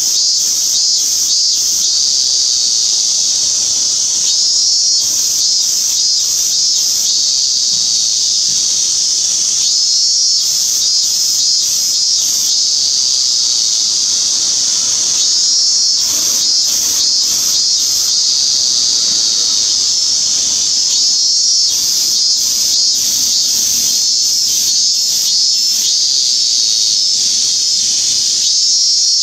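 Robust cicada (minminzemi, Hyalessa maculaticollis) singing: a loud, continuous high buzzing that swells into runs of slow, regular pulses every few seconds.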